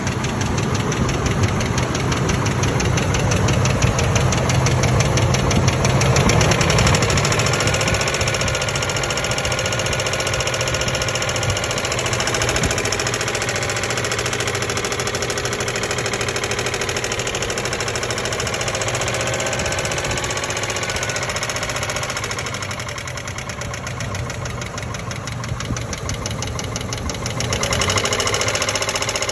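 1997 Ford Expedition's 5.4-litre two-valve V8 running with a fast, even ticking or tapping from the engine, which the owner suspects comes from a clogged or leaking fuel injector. The engine is louder for the first several seconds and again near the end.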